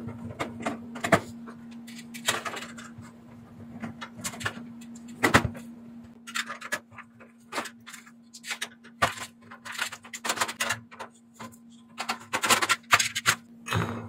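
Plastic and sheet-metal casing parts of an oil-fan heater clicking and knocking as the front panel and grille are handled and taken off, in irregular clusters. A steady low hum runs underneath.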